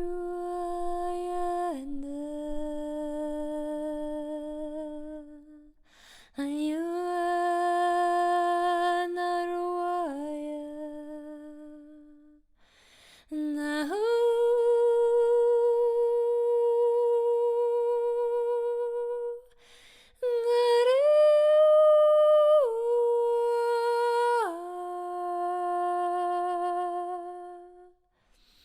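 A woman's voice singing long, wordless held notes in four slow phrases, each note sustained for several seconds and stepping up or down to a few other pitches; the highest note comes in the last phrase. Sound-healing vocal toning.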